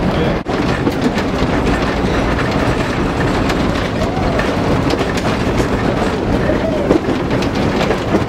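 Heritage electric tram running along its track, heard from on board: a steady noise of wheels on rails with frequent clicks.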